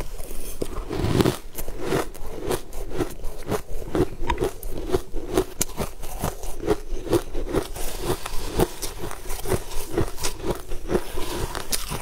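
Close-up crunching and chewing of mouthfuls of frozen, crushed purple ice, a rapid run of crisp crunches several times a second, with a metal spoon scraping through the ice.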